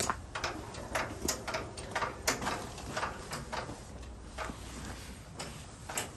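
Irregular clicks and knocks, about a dozen, from hands working the parts and controls of a stopped Kubota riding tiller; the engine is not running.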